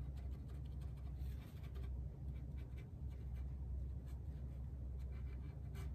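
Small paintbrush dabbing and brushing stain into rough wood: soft, scattered scratching taps of the bristles against the board, over a steady low hum.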